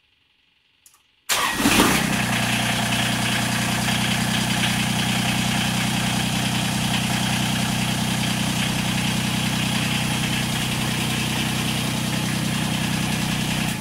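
Kubota BX2230 compact tractor's three-cylinder diesel engine starting about a second in after a small click, catching at once and idling steadily, then shut off right at the end.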